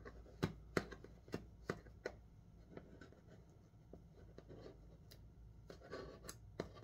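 Fingernails picking and scratching at the green tape sealing a cardboard knife box: a run of faint, irregular small clicks and taps, with brief rustling scrapes later on.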